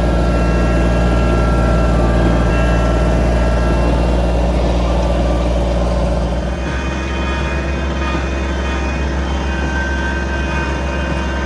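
Kubota BX25D compact tractor's three-cylinder diesel running steadily. Its low hum eases a little about halfway through.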